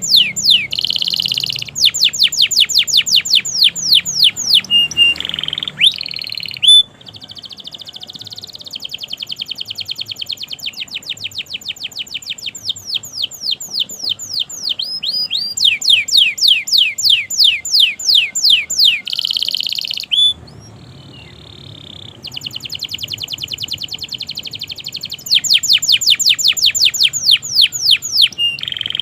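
Domestic canary singing a long song of fast trills, each a rapid run of repeated falling whistled notes. The trills are broken by short pauses and a couple of softer passages.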